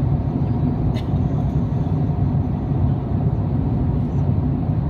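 Steady low rumble of cabin noise aboard an Airbus A350-900, with a brief click about a second in.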